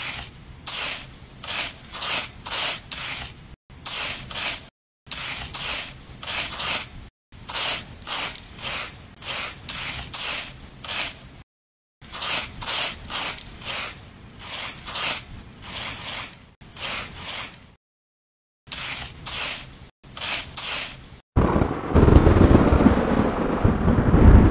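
A small brush and tiny trowel scraping through sand in quick strokes, about three a second, in runs of a few seconds with short pauses. About three seconds before the end a loud, low rushing of wind takes over.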